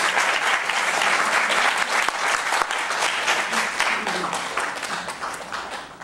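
Audience applauding, a dense patter of many hands that dies away over the last couple of seconds.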